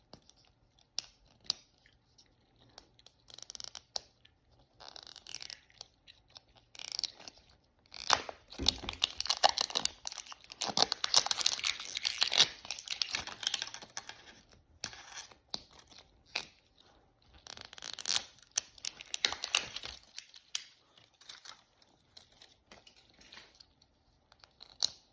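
Plastic wrapping of a Mini Brands capsule ball being torn open and crinkled by hand, in uneven bursts with sharp clicks and taps between. The longest stretches of tearing come about a third of the way in and again past the middle.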